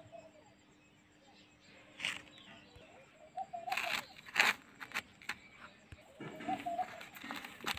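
A few sharp clicks and knocks, the loudest of them around the middle, with short bird calls in between.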